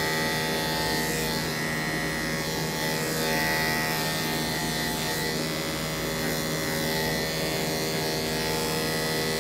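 Electric dog grooming clippers running steadily with an even motor hum while shaving the hair on a dog's ear.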